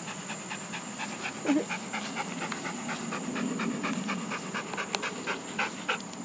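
Dog panting in quick, short, rhythmic breaths.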